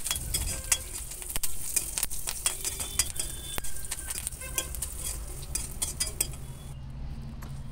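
Metal spoon stirring and scraping a tempering of curry leaves, chillies and dals around a kadai, with many sharp clinks over the sizzle of hot oil. The high hiss drops away near the end.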